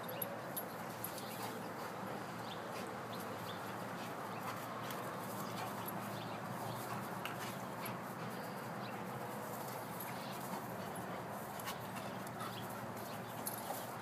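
A dog whining faintly over a steady background hiss, with scattered light clicks.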